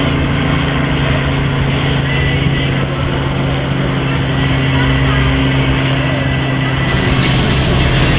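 A steady low engine hum, one unchanging tone with another above it, over a background wash of voices and outdoor noise; the hum stops abruptly near the end.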